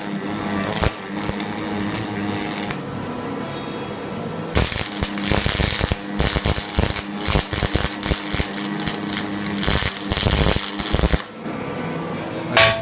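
Electric arc welder crackling as a bead is laid on the car's steel frame, in two runs: one stopping a few seconds in, and a longer one starting again about a second and a half later. A steady hum is heard in the pause, and there is a single sharp click near the end.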